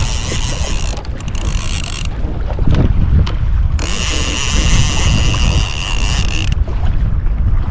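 Fishing reel ratcheting in two spells, the first stopping about two seconds in and the second running from about four to six and a half seconds in, over heavy wind rumble on the microphone.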